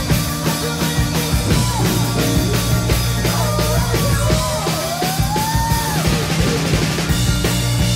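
Live rock band playing: a steady drum-kit beat over bass and guitars, with a high melody line sliding up and down in pitch over the top.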